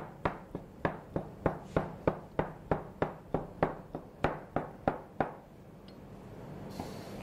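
Kitchen knife chopping through strips of soft gnocchi dough, its blade tapping the wooden board about three times a second, then stopping after about five seconds.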